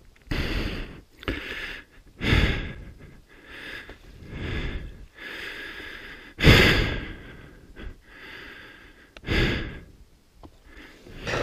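A person breathing hard close to the microphone, in irregular heavy puffs about once a second, the loudest about six and a half seconds in.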